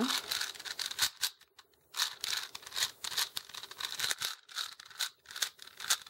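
Plastic layers of a 4x4 Rubik's Cube being turned by hand: a quick run of clicks and scraping, with a short pause about a second and a half in.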